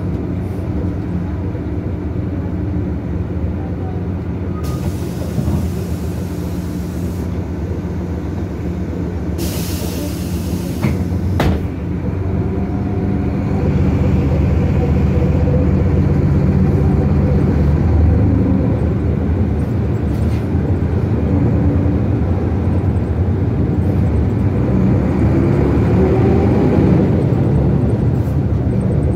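Cummins C 220-20 inline-six diesel of a BMC Belde 220-CB bus, heard on board, running steadily, with two short hisses of compressed air and a click in the first half. About halfway through the engine grows louder and its pitch shifts as it pulls harder.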